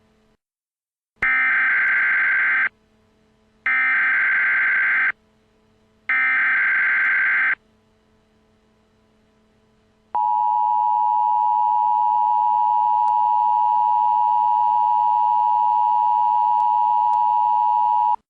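Emergency Alert System alert opening. Three bursts of SAME digital header data, each about a second and a half long and about a second apart, are followed by the steady two-tone EAS attention signal for about eight seconds, which then cuts off.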